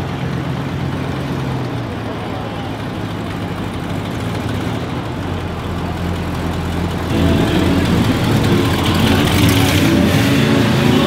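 A car engine running with a steady low rumble that grows louder and fuller about seven seconds in, as a car drives past.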